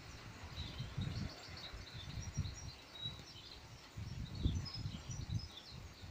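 Small birds chirping over irregular low rumbles, which are loudest about four and a half seconds in.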